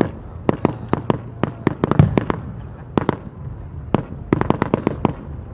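Aerial fireworks going off: a rapid, irregular series of sharp bangs, with a deeper, heavier boom about two seconds in.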